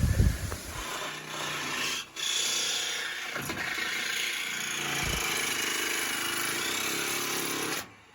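Electric jigsaw cutting a vent hole through the outhouse roof, started in a unibit pilot hole: a steady saw noise that pauses briefly about two seconds in, then runs on and cuts off suddenly near the end.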